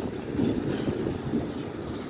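Wind buffeting the phone's microphone: an uneven low rumble with no steady tone in it.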